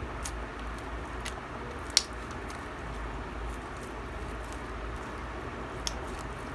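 Homemade clear glue slime being squeezed and pressed by hand: soft squishing with a few sharp clicks and pops, the loudest about two seconds in, over a steady hiss.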